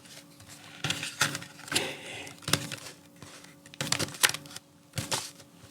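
A string of irregular clicks and rustles from small objects being handled close to the microphone.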